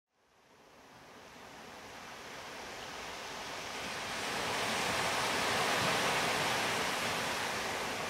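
Ocean surf rushing, a steady wash of waves that fades in from silence and swells over about five seconds.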